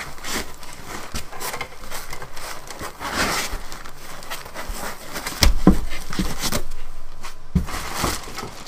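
Plastic packing bag crinkling and foam packing rubbing as a 3D printer frame is unwrapped by hand, with a couple of heavy thumps a little past the middle.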